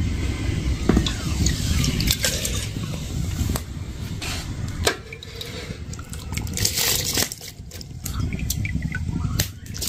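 Starchy water from boiled rice pouring and dripping out of a tilted aluminium pot, strained past a plate held over its mouth into another pot, with scattered clicks and knocks as the metal pots are handled.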